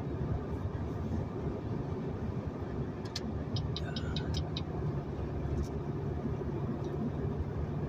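Steady road and engine rumble heard from inside a moving car at highway speed. A short run of quick, light ticks comes about three seconds in.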